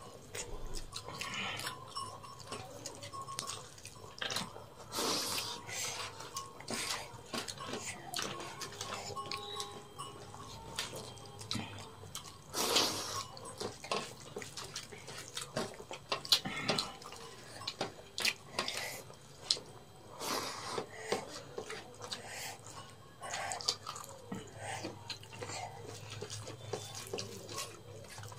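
People eating rice and egg curry by hand from metal plates: wet squelching of fingers mixing rice and curry, mouth sounds of chewing, and scattered short clicks and taps of fingers and food against the plates. The loudest tap comes about 13 seconds in.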